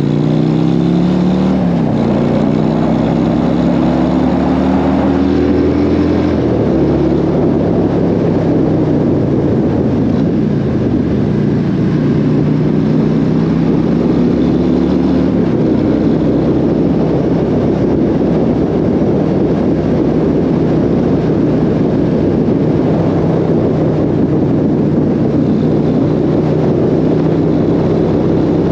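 Harley-Davidson V-twin motorcycle accelerating. The engine pitch rises and drops at each upshift three times in the first half, then holds steady at cruising speed, with heavy wind rush over the microphone.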